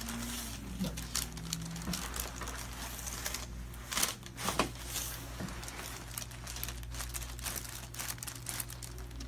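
Rustling and crinkling as a person moves on a chiropractic treatment table, with short clicks and taps, the loudest about four seconds in. A steady low hum runs underneath.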